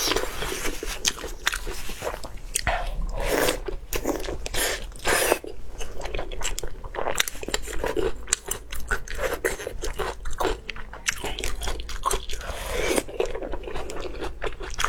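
Close-up eating sounds: a person biting and chewing food, with many sharp crunches and clicks packed closely together.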